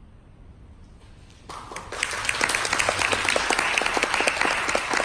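A short hush after the music ends, then audience applause breaks out about a second and a half in: dense clapping that carries on.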